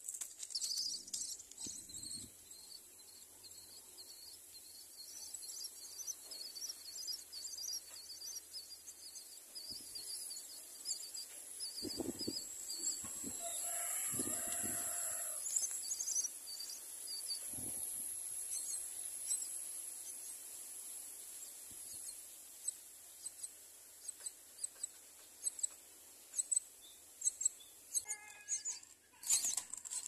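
Common myna nestlings begging with a steady stream of thin, high chirps. About twelve seconds in, a parent myna arrives at the nest with a few knocks and flaps, and for several seconds louder, lower calls rise over the chirping as the chicks are fed.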